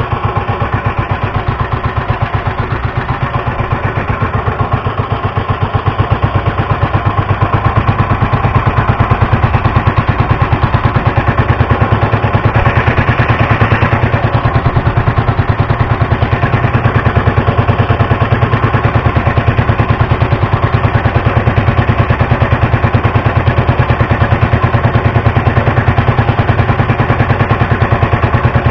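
A fishing bangka's small engine running steadily, its rapid even firing pulses going on throughout and getting a little louder about six seconds in.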